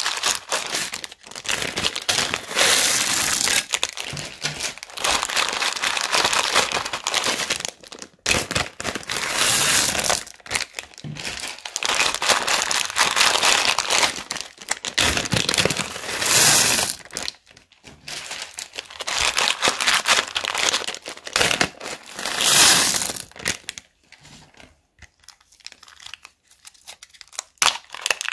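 Small zip-lock plastic bags of plastic beads crinkling as they are handled and opened, with the beads rattling and spilling out in loud stretches of a second or two separated by short pauses.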